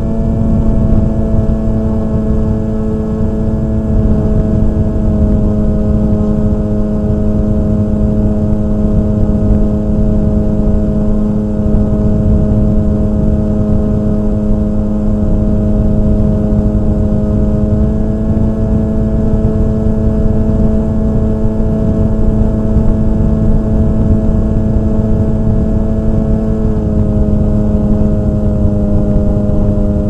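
Model aircraft's motor and propeller running with a steady hum, its pitch stepping slightly up about two-thirds of the way in and down again near the end, over wind rumbling on the microphone.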